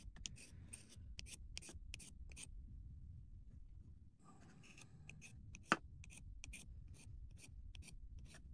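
Scalpel blade scraping a stick of soft pastel into a plastic tub, in quick repeated scratchy strokes that pause for a moment near the middle. A single sharp click about five and a half seconds in.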